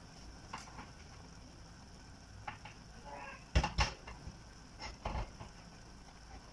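A few sharp knocks and clatters over a faint steady hiss. The loudest is a quick pair of knocks a little past halfway, and a softer pair follows about a second later.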